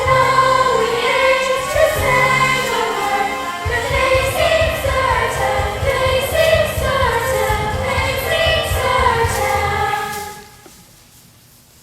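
A stage cast singing together as a chorus in a musical theatre number, with accompaniment that adds a steady low beat a few seconds in. The song stops about ten seconds in.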